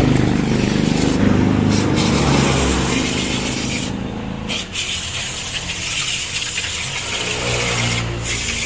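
Long hissing blasts of spray or compressed air in a workshop, each lasting a few seconds with short gaps between, over a motor running underneath that is loudest in the first half.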